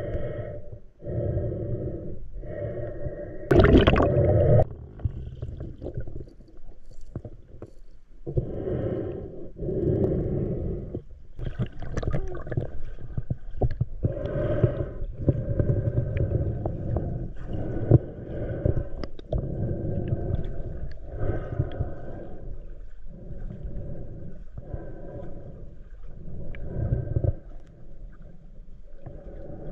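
Muffled underwater noise from a camera carried by a swimming freediver: a low rumble that pulses on and off about once a second, with a louder rushing burst about four seconds in.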